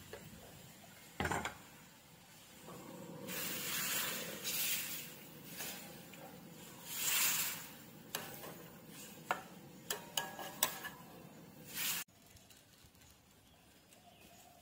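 A metal ladle stirring coconut milk and green curry paste in a metal wok: swishing of the liquid with sharp clinks and knocks of the ladle against the wok. Near the end the sound cuts off suddenly to a faint bubbling of the curry at the boil.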